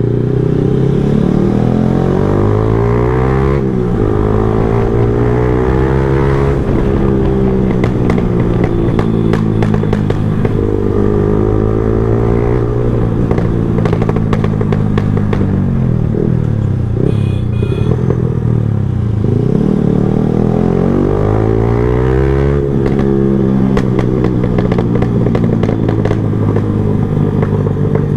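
Yamaha R15M's single-cylinder engine through an aftermarket exhaust, ridden hard: its pitch climbs as it revs up, then drops sharply at each gear change or throttle-off, several times over.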